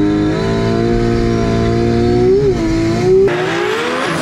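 Race car engine heard from inside the cabin, holding a steady, slowly rising pitch with a brief wobble about two and a half seconds in. Near the end the sound switches to cars heard from trackside: engines climbing in pitch over a rushing hiss.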